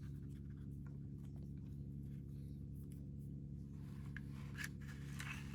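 Quiet room tone with a steady low electrical hum, and a few faint light clicks near the end.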